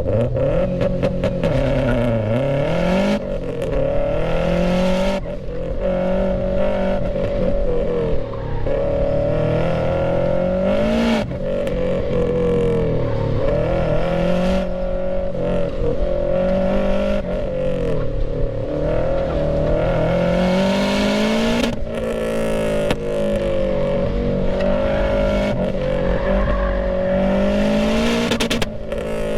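2004 Subaru Impreza WRX STI's turbocharged flat-four running through an HKS Carbon-Ti exhaust, hard on the throttle in low gears: the revs climb and drop again and again as it accelerates and lifts for corners, with several sudden lift-offs.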